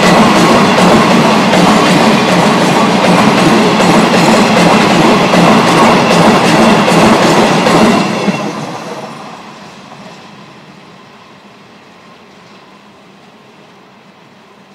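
Freight train of steel hopper wagons rolling past at speed, a steady loud rush of wheels clattering over the rail joints. About eight seconds in the last wagon passes and the sound drops away sharply, fading to a faint rumble as the train recedes down the line.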